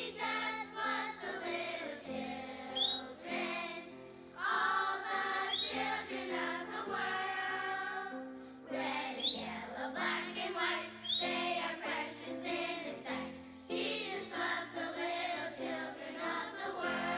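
Background music with choir-like singing over held low notes, with a short high rising chirp every few seconds.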